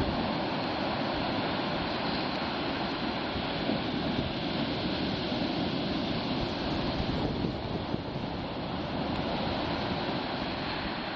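Atlantic Ocean surf breaking and washing on a sandy beach, a steady rushing of waves, with some wind on the microphone.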